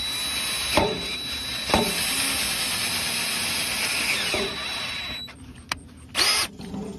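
Cordless drill running a left-hand drill bit into a broken exhaust manifold stud in a Ford 8N tractor's cylinder head, a steady whine with two sharp knocks about one and two seconds in. It stops a little after five seconds, followed by a click and a short burst near the end.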